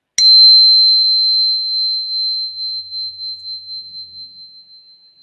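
Small high-pitched tuning fork struck once against a raw, uncut crystal: a sharp tap, then a single pure high tone that rings on and slowly fades with a slight waver.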